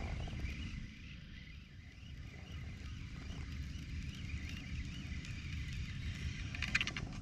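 Outdoor ambience: wind rumbling on the microphone with a faint, fluttering high hum, and a few sharp clicks near the end.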